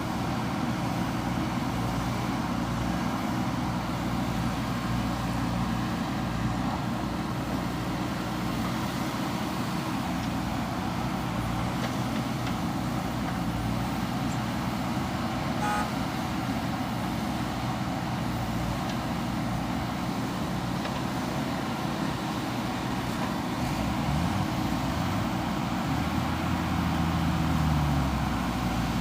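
Heavy diesel engine of earth-moving machinery running steadily under load; about five seconds before the end it revs up, its pitch rising, then drops back.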